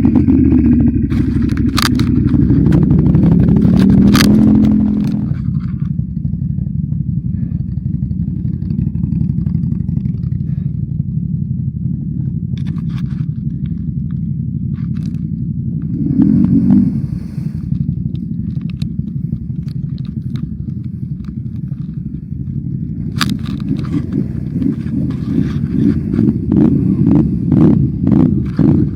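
ATV engine running, its revs rising over the first few seconds and then settling to a steady lower run, with a short burst of throttle about halfway through. Knocking and clattering over the engine near the end.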